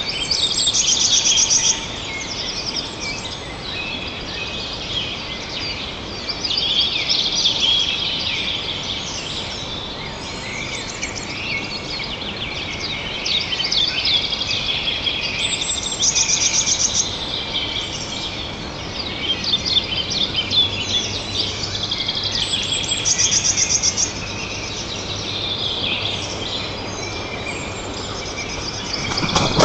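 Chorus of small songbirds singing in woodland, with overlapping songs and calls; one bird repeats a fast, high trill every several seconds.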